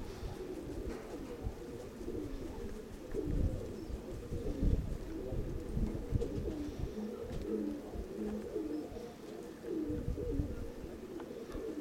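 Nikolaev pigeons cooing, many soft coos overlapping one after another, with gusts of strong wind rumbling on the microphone.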